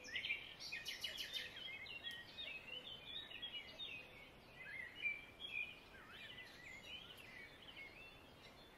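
Faint background birdsong: many short chirps and quick sliding calls from birds, busiest in the first few seconds and thinning out toward the end.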